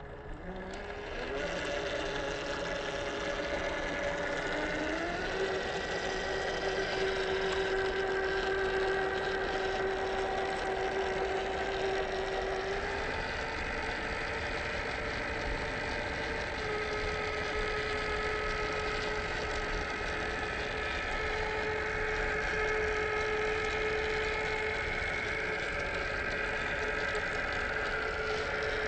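Electric motor and gear drivetrain of a 1/10-scale Boom Racing BRX02 RC crawler whining steadily under throttle. The pitch glides up about five seconds in, falls back about thirteen seconds in, and shifts again a few seconds later.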